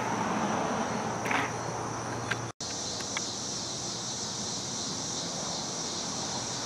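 Steady outdoor background with a continuous high-pitched insect drone; the sound drops out for an instant about two and a half seconds in.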